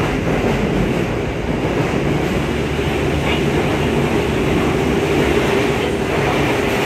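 Running sound heard inside a Yokohama Municipal Subway 3000R-series car, DeHa 3453, travelling between stations: a steady rumble of wheels and traction equipment with a steady hum.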